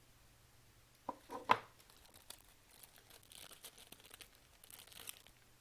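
Small handling noises at a workbench: a few quick, sharp clicks about a second in, then light crinkling and rustling for a couple of seconds.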